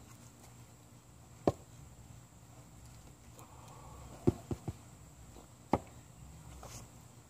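Short, sharp wooden knocks from split firewood being handled and stood on a chopping block. There is a single knock, then three in quick succession, then one more.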